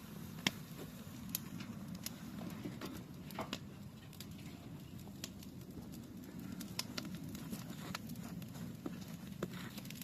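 Branches burning in a metal barrel: irregular crackling and popping of the burning wood over a steady low rumble of the fire, with the sharpest pop about half a second in.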